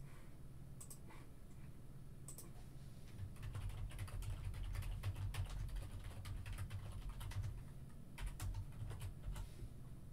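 Computer keyboard typing: a few separate key clicks, then a run of rapid typing from about three seconds in, with a short pause near eight seconds before a last brief run.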